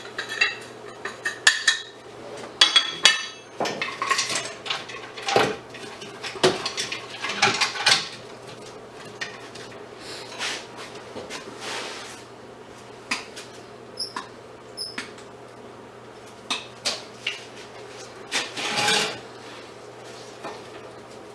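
Small metal scrap parts clinking and clanking as they are handled, knocked and pried apart with hand tools. The knocks come thick for the first several seconds, then turn sparse and irregular.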